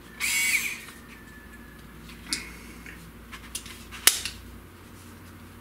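Handling of a cordless screwdriver and its parts: a short rasping burst just after the start, then a few sharp clicks, the loudest about four seconds in.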